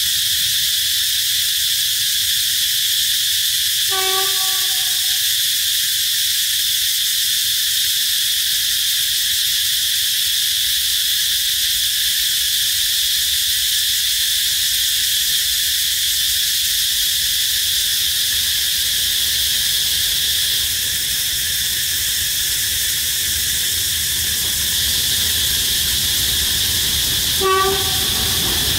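D9E diesel locomotive's horn sounding two brief blasts, about four seconds in and again near the end, the second a little louder, over a steady high-pitched chorus of insects.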